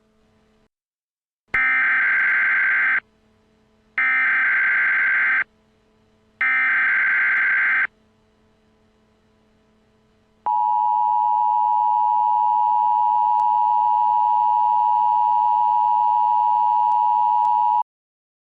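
Emergency Alert System signal announcing an emergency alert. It opens with three SAME data-header bursts, each a harsh electronic screech about a second and a half long. A few seconds later the steady two-tone EAS attention signal sounds for about seven seconds.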